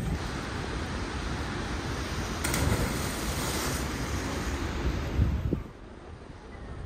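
Wind buffeting the microphone over rushing, splashing river water, with a sudden splash of a body hitting the water about two and a half seconds in. The sound drops to a quieter outdoor hush near the end.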